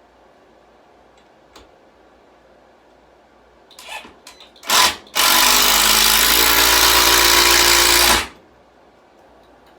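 Power drill driving a screw into wood. A few short taps and clicks, then the drill runs for about three seconds, its motor pitch rising as it spins up before holding steady, and stops abruptly.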